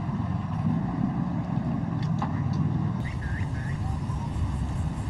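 Steady low outdoor rumble of golf-course ambience, with a few short high chirps about two-thirds of the way through.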